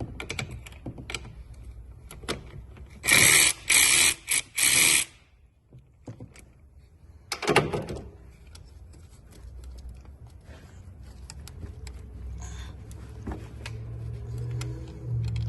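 Mechanic's tools working on a car: scattered clicks and taps, with three short, loud bursts of tool noise about three to five seconds in and one more near the middle.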